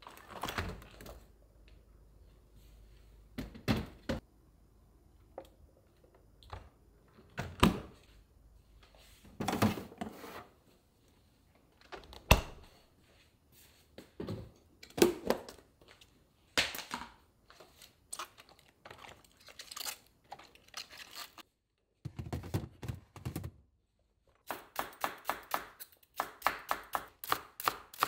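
Scattered knocks and thumps of kitchen handling. Near the end comes a kitchen knife chopping green onions on a wooden cutting board in quick, even strokes, about three to four a second.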